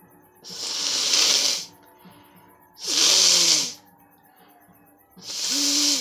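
A woman forcefully blowing her nose three times, each a hissing blast of about a second, the second and third carrying a short voiced grunt.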